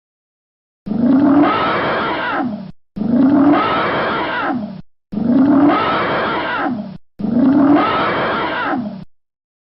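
An animal's roaring call, the same two-second clip played four times in a row with short gaps, starting about a second in. Each call rises and then falls in pitch.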